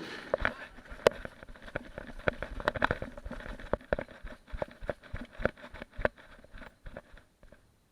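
Someone running in fast, fairly regular footfalls, about three a second, with rustling and rattling of clothing and gear. It starts abruptly and fades out just before the end.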